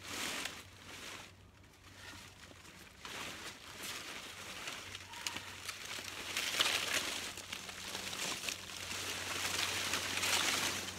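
Dry, dead yucca leaves rustling and crackling as the plant is grabbed and moved by hand, in several swells, loudest about two-thirds of the way in and near the end.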